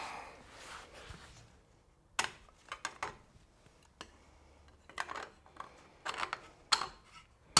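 Irregular light clicks and knocks, about a dozen, of a wheel spacer and wheel being handled and fitted onto a car's hub, the loudest knock near the end.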